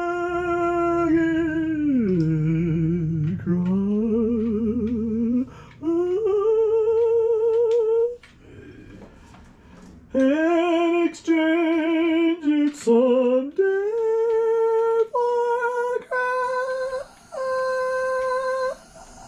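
A person humming a wordless tune in long held notes with a slight waver, phrase after phrase, with a short break about halfway through.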